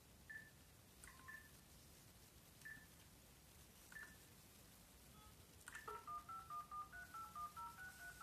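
Mobile phone keypad tones: a few single beeps a second or so apart, then, about six seconds in, a quick run of touch-tone (DTMF) dialing tones, roughly five a second, as a phone number is dialed.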